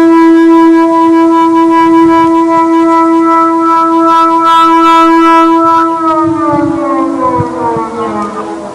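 Air raid siren holding a steady wail, then about six seconds in its pitch begins to fall and it grows quieter as it winds down.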